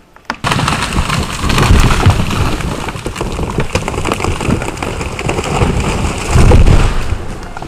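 A large rotted cedar crashing down: a sudden, long, dense crash of breaking wood and branches with heavy low thuds, loudest about two seconds in and again near the end.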